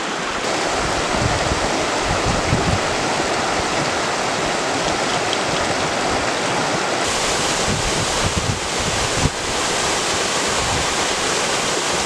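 Mountain creek water rushing over rocks and spilling through a beaver dam: a steady wash that grows brighter about seven seconds in, with low wind rumble on the microphone.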